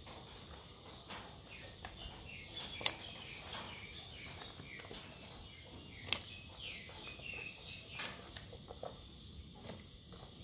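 Birds chirping, a series of short falling chirps, with a few sharp clicks and soft knocks as pumpkin chunks are dropped into a pot of broth.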